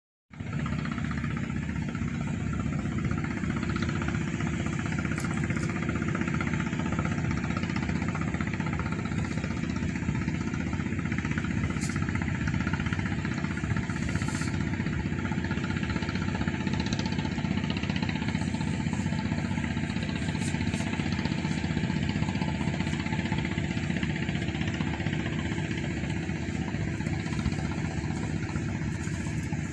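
An engine idling steadily, a constant motor hum that does not change.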